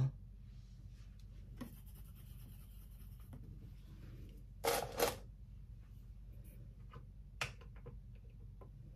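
Faint handling sounds of makeup tools and product containers: light scuffing, two louder short rubs about five seconds in and a small click near the end, over a steady low room hum.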